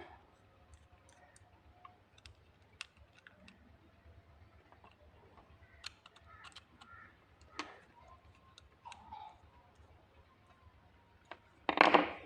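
Faint, scattered clicks and taps of small plastic plug parts and wire being handled, with a louder scraping rustle near the end.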